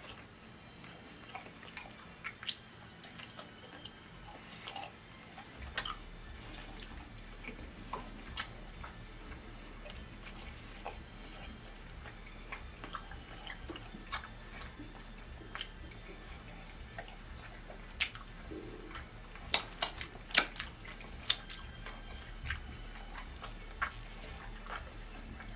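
A person chewing food close to the microphone, with short wet mouth clicks scattered throughout and a cluster of sharper clicks about 18 to 21 seconds in.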